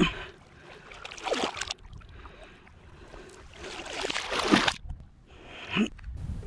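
Small lake waves washing and splashing against shoreline rocks, about four surges a second or more apart, the one near four and a half seconds the loudest.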